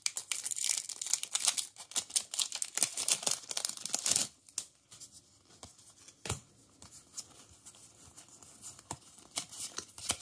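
Foil wrapper of a Pokémon TCG booster pack being torn open and crinkled for about the first four seconds. After that it goes much quieter, with a few scattered taps and clicks as the stack of cards is handled.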